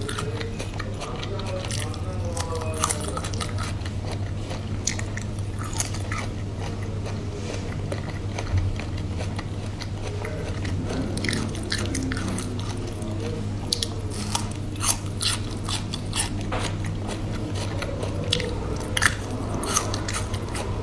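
Close-up mouth sounds of biting and chewing chewy braised beef skin: irregular wet clicks and smacks, more frequent in the second half, over a steady low hum.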